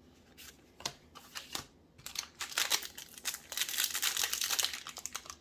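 A few light ticks of cards being handled, then about three seconds of dense crinkling from a Magic: The Gathering booster pack's foil wrapper being handled and torn open.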